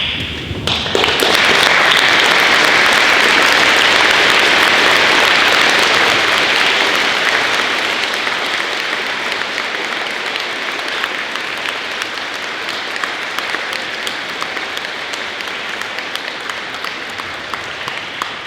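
Audience applauding, a dense steady clapping that builds within the first second or so, is loudest for a few seconds, then slowly tapers off.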